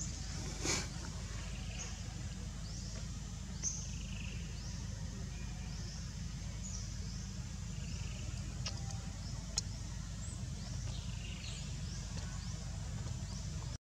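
Outdoor ambience: birds chirping in short, high, rising notes every second or so over a steady low rumble, with a couple of faint clicks.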